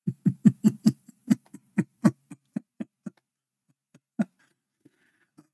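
A man laughing in a run of short breathy "ha" pulses that slow and fade over about three seconds, with one last pulse about four seconds in.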